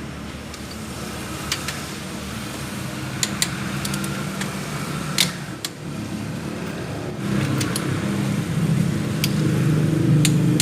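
A car engine running steadily and getting louder from a little past the middle, with several sharp metallic clicks over it.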